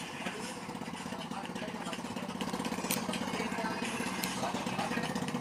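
A motor running with a steady, fast-fluttering hum that gets a little louder about halfway through, with a few light clicks.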